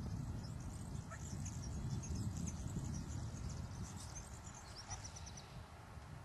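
Small birds chirping in quick high notes, with a fast trill about five seconds in, over a steady low rumble.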